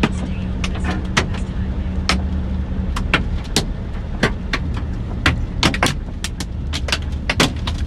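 Large hailstones striking a car's roof and windows, heard from inside the cabin: sharp, irregular cracks about two to three a second over the car's steady low running hum.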